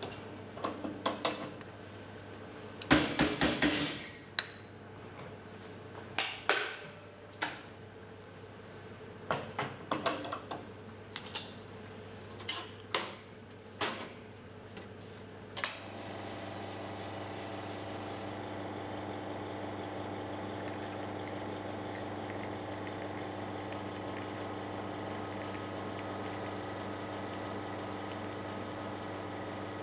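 Metal clacks and knocks of an espresso machine's portafilter being handled and locked into the group head, with a dense burst of knocking early on. About halfway through, the commercial espresso machine's pump starts with a steady hum as a shot brews, and it runs on evenly.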